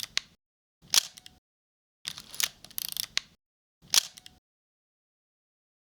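A film camera's shutter and film-advance mechanism clicking in three short bursts, with dead silence between them.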